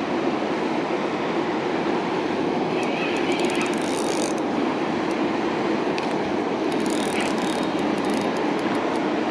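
River water rushing steadily over rocks, a continuous even roar.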